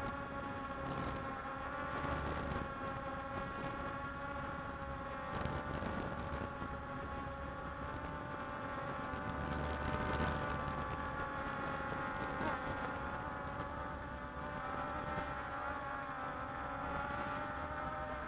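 Walkera Scout X4 quadcopter's motors and propellers buzzing steadily in flight, as several whining tones that drift slightly up and down in pitch.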